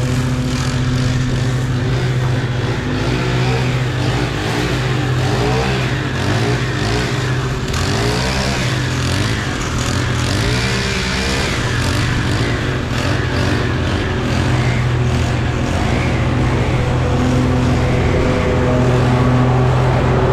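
Lawn mower engine running steadily under load while mowing, its pitch wavering up and down for several seconds in the middle.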